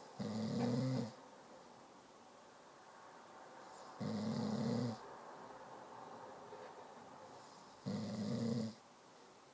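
Snoring: three loud snores about four seconds apart, each lasting just under a second, with faint breathing between them.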